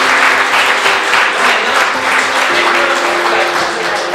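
Audience applauding, with music of held, plucked-string notes playing underneath.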